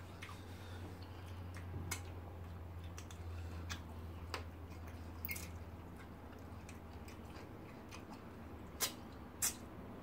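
Quiet mukbang eating sounds: chewing and wet mouth clicks and smacks while fish pepper soup and starch are eaten by hand, with two sharper clicks close together near the end. A faint low hum runs beneath.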